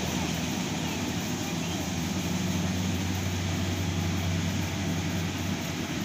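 Kubota rice combine harvester running steadily as it cuts and threshes rice, its engine giving an even, low drone.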